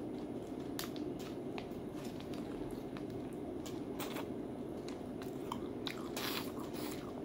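Crunchy chewing of a snack duck foot, bones and cartilage included: a string of short sharp crunches over a steady low hum.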